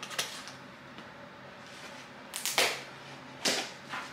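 Quiet room tone, then two short rustles of packaging being handled, about two and a half and three and a half seconds in.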